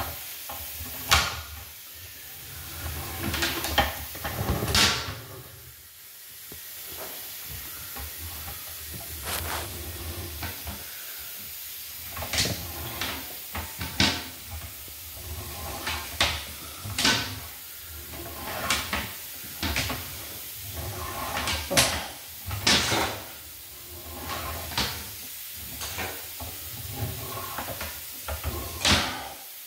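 Irregular clunks, scrapes and rustles from handling the inspection gear, about one every second or two with some in quick pairs, over a low steady hum.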